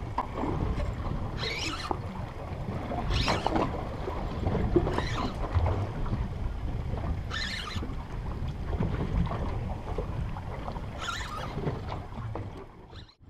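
Wind buffeting the microphone in an open boat at sea, a steady low rumble, with water lapping at the hull and about five short hissing splashes spread through.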